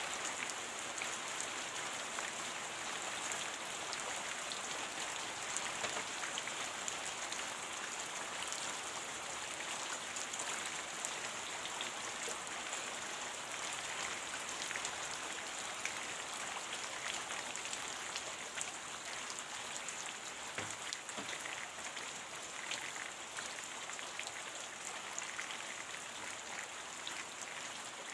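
Steady rain: an even hiss scattered with many small, sharp drop impacts.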